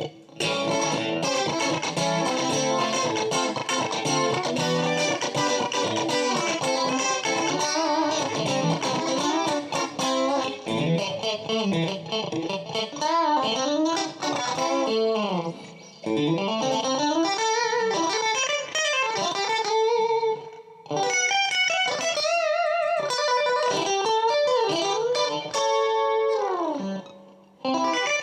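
Electric guitar, a 1985 Matsumoku-built Westone GT, played with a clean tone: single-note lead lines full of string bends and slides, stopping briefly a few times.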